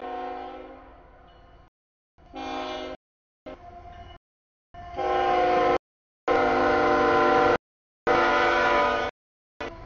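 Freight locomotive's multi-chime air horn sounding a series of blasts for a grade crossing, one chord at a time. The blasts grow louder as the train closes in, and the loudest come in the second half.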